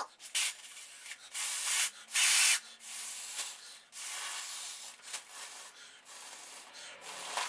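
Air blown by mouth through a straw into a foil balloon's valve, in a series of breathy puffs, with the foil balloon rustling as it is handled and fills.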